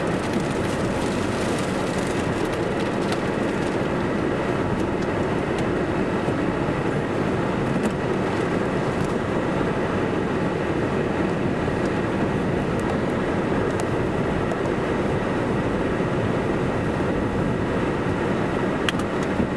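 Steady rushing noise inside a vehicle, largely the defroster blower and the cooling fans on the power inverters, with a few faint ticks scattered through it.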